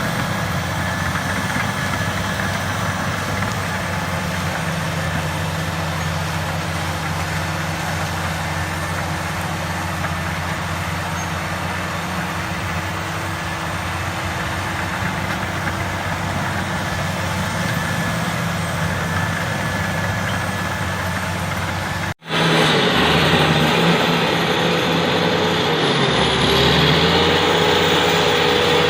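Heavy diesel engine of a Komatsu D85ESS crawler bulldozer running steadily. After an abrupt cut about 22 seconds in, the engine is louder and its pitch dips and recovers briefly a few seconds later, as it takes load.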